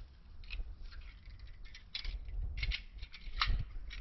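Scattered crackles and snaps of dry twigs and forest litter, from footsteps and handling on a floor of dry pine needles, with a few louder snaps near the end over a low rumble.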